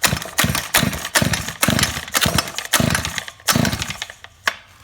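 Shindaiwa T231X trimmer's small two-stroke engine being cranked on its pull-starter in rapid strokes, about two a second, then stopping about four and a half seconds in. It does not run: this is cranking for a compression test, which reads about 120 psi.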